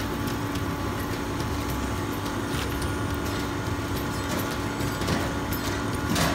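Steady kitchen hum with a rushing noise under it and a few faint ticks.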